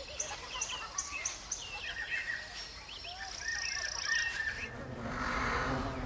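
Forest bird ambience: small birds chirping, with a run of quick high ticks and a couple of held warbling trills. Near the end the birdsong stops and a low droning hum with a hiss takes over.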